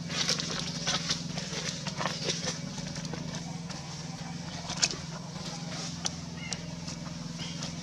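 Crinkling and crackling of a plastic bag and container as a baby macaque handles them, with irregular sharp crackles and one louder snap about five seconds in, over a steady low hum.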